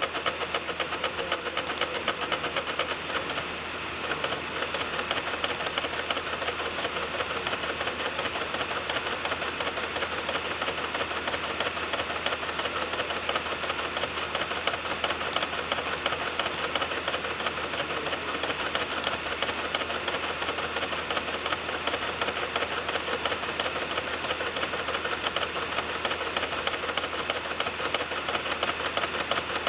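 Computer DVD drive reading a burned disc: rapid, regular clicking, several clicks a second, over the steady whir of the spinning disc, as the drive seeks and reads program files from it.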